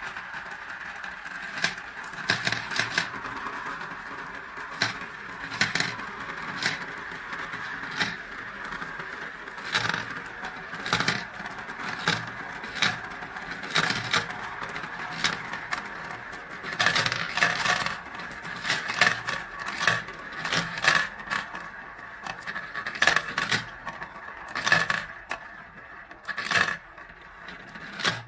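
Balls rolling around the clear plastic funnel bowls of a toy marble run: a continuous rolling sound with frequent sharp clacks as they hit one another, drop into the centre tubes and rattle down the plastic pipes. The clacks come more often in the second half.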